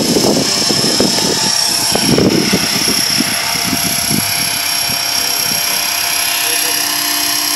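Electric 550-size RC helicopter hovering, its motor and rotor giving a steady high-pitched whine.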